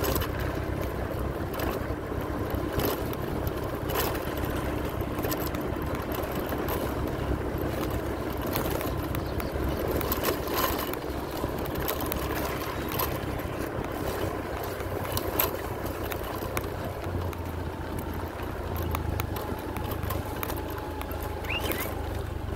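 A vehicle running along a bumpy dirt road: a steady engine hum and road rumble, with scattered short knocks and rattles as it goes over the rough surface.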